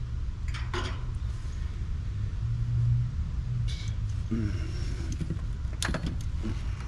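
A few sharp clicks and small metallic rattles as wires and terminals are handled at an AC condenser's contactor, over a steady low rumble.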